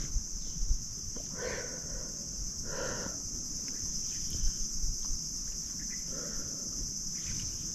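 Steady high-pitched insect drone with a few faint short calls, the first about a second and a half in, over a low rumble of wind on the microphone.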